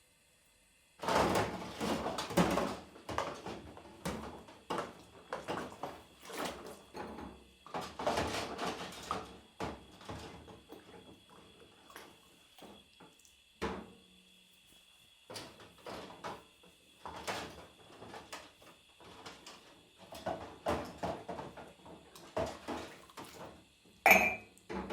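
Dishes being washed by hand: water sloshing, with plates and utensils knocking and clinking in irregular bursts that start about a second in. A single sharp clink stands out near the end.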